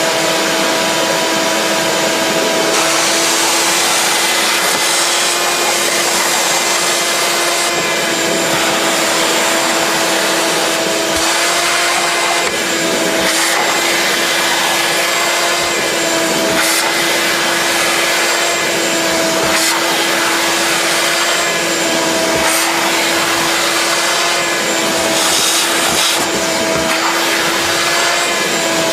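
Wet/dry shop vac running steadily, sucking soapy rinse water up out of wet carpet: rushing air over a steady hum whose pitch wavers slightly now and then.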